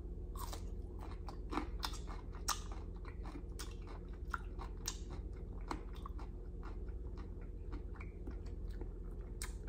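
Close-miked chewing of a Kool-Aid pickle spear (a dill pickle soaked in Kool-Aid): irregular crunches and wet clicks as it is bitten and chewed.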